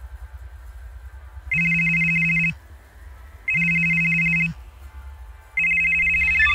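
Mobile phone ringing: three electronic rings about a second long each, coming every two seconds, each one a high two-note trill over a low buzz.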